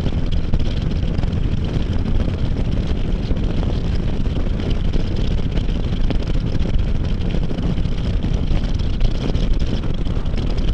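Can-Am Spyder F3's three-cylinder engine running at a steady cruise, mixed with wind noise on the microphone, with no change in speed.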